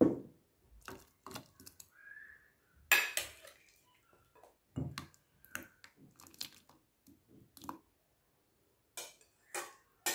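Metal utensils knocking and clinking against a saucepan and bowl as pieces of cut fruit are dropped into a pot of milk, with soft plops and splashes. It comes as a string of separate knocks, the loudest at the start and about three seconds in.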